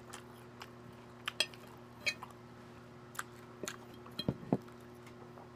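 Fork and knife clicking and tapping against a glass plate while cutting food: about ten light, scattered clicks, with a few stronger knocks about three-quarters of the way through.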